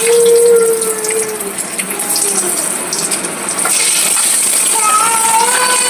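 Sardines deep-frying in hot oil, a steady loud sizzle. A faint wavering tone sounds over it at the start and again near the end.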